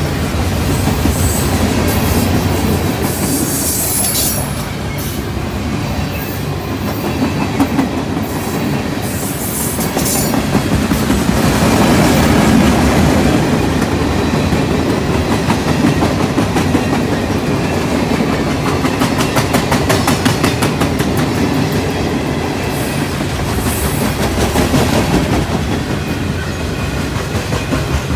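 Freight cars of a slow mixed freight train rolling past, their wheels clicking steadily over the rail joints. There are a few brief high-pitched wheel squeals.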